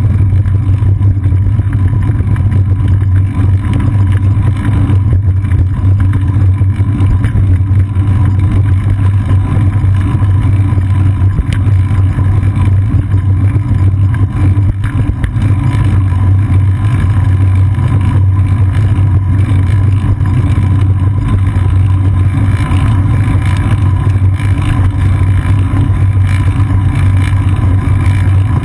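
Loud, steady rumble of wind buffeting a seat-post-mounted GoPro Hero 2's microphone while cycling, mixed with road and tyre noise through the bike, with a few faint knocks from bumps.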